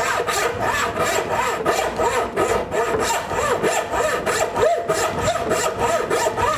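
Turning saw cutting a concave curve through 1½-inch construction lumber by hand, in a quick, even rhythm of push and pull strokes. Each stroke carries a ringing pitch from the thin blade that rises and falls.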